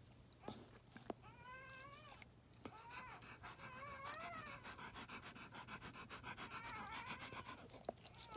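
Newborn puppy squealing, a string of high, wavering cries beginning about a second in, while its mother licks it with quick wet clicks.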